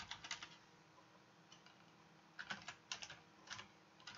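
Faint computer keyboard typing: a few quick keystrokes at the start, a pause of about two seconds, then several more bursts of keystrokes near the end.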